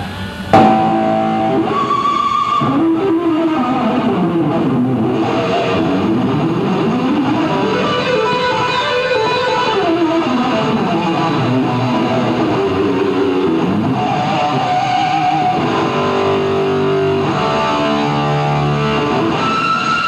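Electric guitar played on its own, coming in suddenly about half a second in. It plays fast runs that climb and fall in pitch, then a string of held notes.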